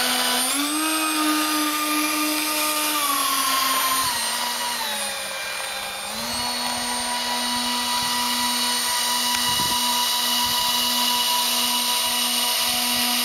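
Twin electric ducted fans (EDF 6904 units on HET 2W-20 brushless motors) of a radio-controlled Boeing 737-700 model airliner spooling up and running with a steady whine. The pitch eases down a few seconds in, comes back up about six seconds in, and then holds steady while the model taxis.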